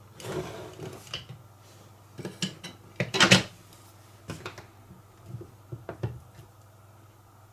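Orange plastic clamshell housing of a cordless drill-driver being pulled apart and handled: a scrape, then a series of clicks and clatters of hard plastic parts knocked and set down on a bench, loudest about three seconds in.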